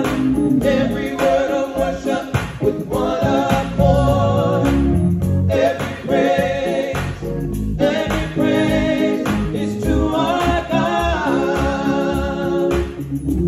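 Three male voices singing a gospel song in harmony, with a keyboard accompanying.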